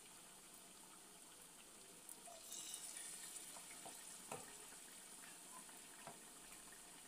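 Faint sizzling and bubbling of chicken pieces deep-frying in hot oil in a steel kadhai, with scattered small pops and crackles.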